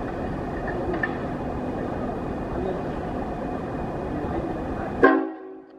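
Steady low rumble of a stationary Queensland Rail electric Tilt Train standing at a platform. About five seconds in, a sudden loud ringing tone sounds and fades within half a second as the rumble cuts off abruptly.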